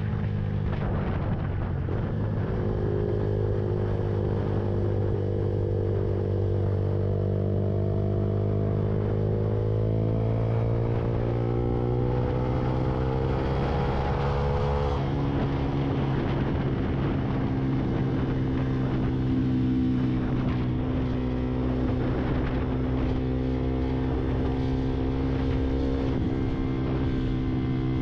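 Lexmoto Viper 125 motorcycle engine under way on the road. Its pitch climbs steadily for over ten seconds as it pulls through a gear, drops suddenly about halfway through at a shift up, then runs steadily at cruising speed.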